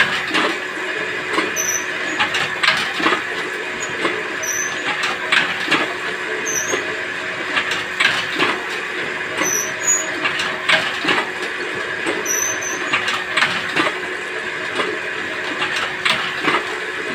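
Paper plate (thali) making machine running: a steady motor hum with a sharp clack of the press about every second or two, and short high squeaks recurring throughout.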